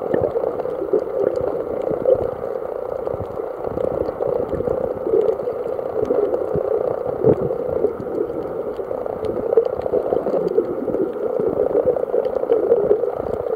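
Muffled underwater water noise picked up by a camera held under the surface: a steady low rushing with faint scattered crackles.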